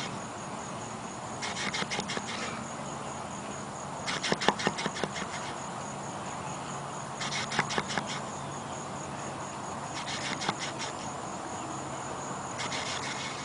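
A large male tiger snoring in deep sleep: a rattling snore about every three seconds, five in all, the one about four seconds in the loudest. A steady high insect buzz runs underneath.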